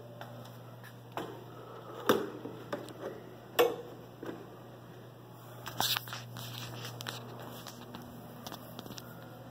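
Footsteps and handling knocks on a hard hallway floor. A few short, sharp knocks, the loudest about two and three and a half seconds in, and a brief rattle of knocks around six seconds, over a steady low hum.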